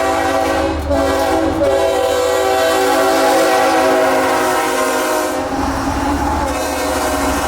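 A CSX freight locomotive's air horn sounds a long, steady chord, then gives way to the rumble of the passing train about five and a half seconds in.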